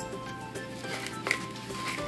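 Background music with sustained, changing notes.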